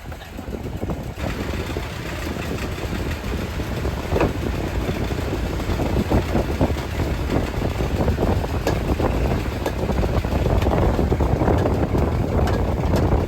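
Fishing boat's engine running, with irregular knocks and splashes over it.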